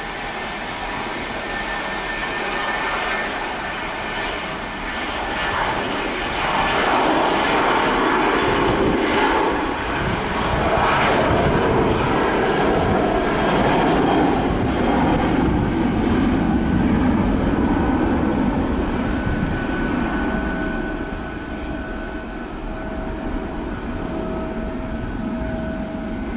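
Jet engines of an Airbus A320 airliner running at high power as it rolls along the runway. The sound swells to its loudest about a third of the way in and holds, with a whine that falls in pitch as the aircraft goes by, then eases off near the end.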